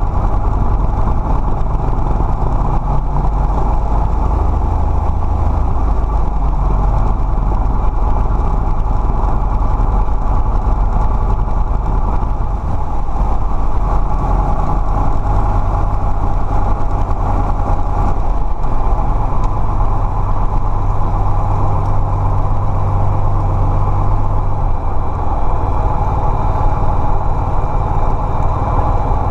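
Cessna 172D's six-cylinder Continental O-300 engine and propeller running at low power while taxiing, heard inside the cabin. The engine's low note shifts a few times.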